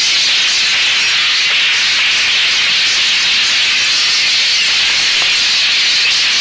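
Steady, loud hissing noise that runs on without rhythm or breaks.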